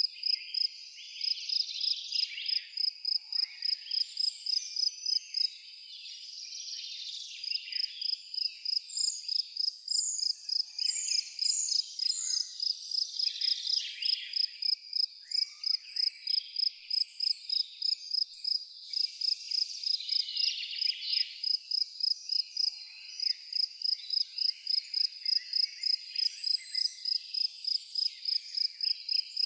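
Insect chirping in a steady high pulse, about three chirps a second, with a short pause about six seconds in. A few short falling bird notes sound about ten seconds in.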